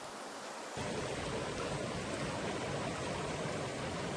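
Small mountain trout stream rushing and splashing as a steady wash of water noise. It grows louder and fuller about a second in.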